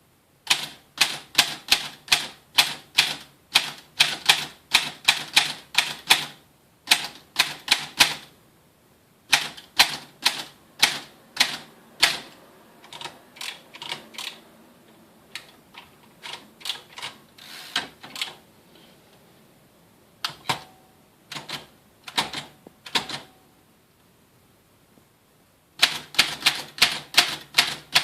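Rheinmetall 09/2552 typewriter being typed on: quick runs of sharp keystrokes, about four a second, broken by short pauses. The strokes thin out to scattered single hits in the middle before a fast run again near the end.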